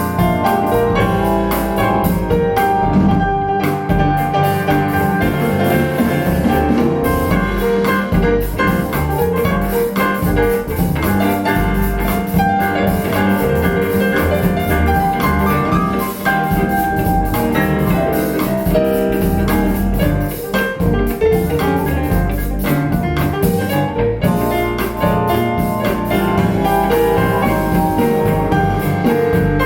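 Instrumental music with piano and drum kit played back through a pair of KEF LS50 bookshelf speakers.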